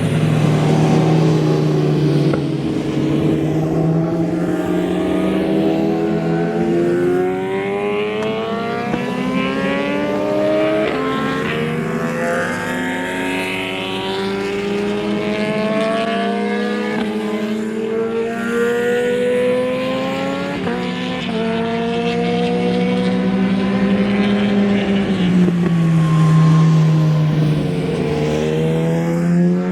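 Racing motorcycle engines at high revs, several bikes overlapping. The pitch climbs for several seconds at a time with small drops at gear changes. Near the end it falls, then climbs again.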